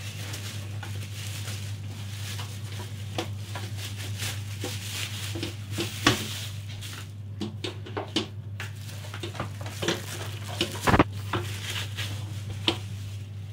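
Crackling rustle of plastic packaging being handled around a contact grill, with scattered clicks and a few sharper knocks of the grill's body, the loudest about six and eleven seconds in.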